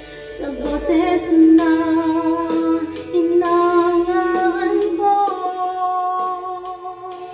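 A woman singing into a handheld karaoke microphone over backing music, holding long notes with vibrato.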